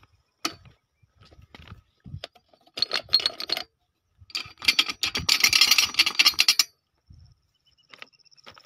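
Crunching and clinking of stones underfoot on railway track ballast. There are scattered clicks, a short crunch about three seconds in and a longer, louder crunching stretch in the middle.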